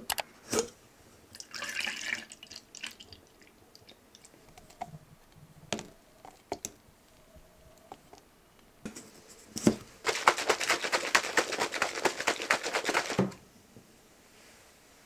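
Plastic protein shaker cup shaken hard for about three seconds near the end, the drink sloshing inside in quick, rhythmic strokes. Before that come scattered clicks and light scrapes as the lid is handled and powder is scooped into the cup.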